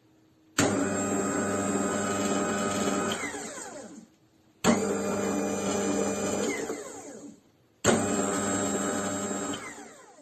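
Electric motor of a cold-press slow juicer switched on three times in a row. Each time it runs steadily for about two and a half seconds, then winds down with a falling pitch after it is switched off.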